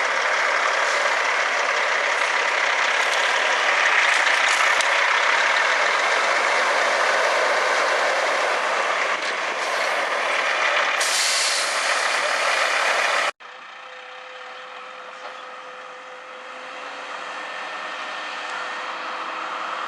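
Kenworth logging truck running loud, with a sharp air hiss starting about 11 seconds in. Two seconds later the sound cuts off abruptly to a much quieter, steady hum with a faint tone.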